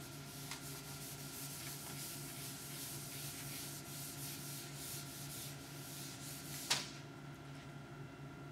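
Whiteboard eraser scrubbing across a dry-erase board in repeated strokes, a steady rubbing hiss. A single sharp click about two-thirds of the way in, after which the scrubbing stops.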